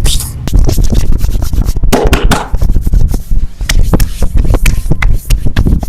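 Hands massaging bare skin close to the microphone: rubbing and scratching strokes with many short, sharp clicks throughout.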